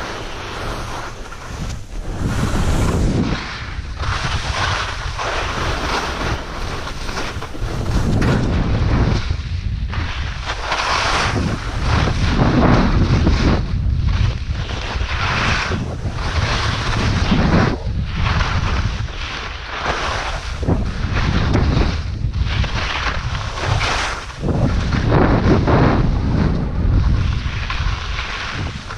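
Skiing-or-riding edges carving and scraping through snow on a fast downhill run, the noise surging with each turn every second or two, with wind rushing over the microphone.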